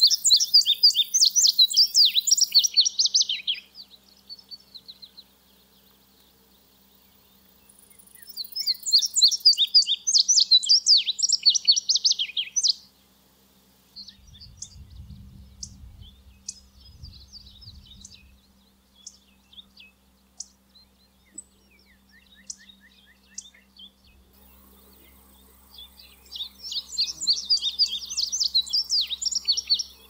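Male indigo bunting singing: three bursts of its rapid, high song, each about three to four seconds long, with faint scattered chirps in the gaps between them.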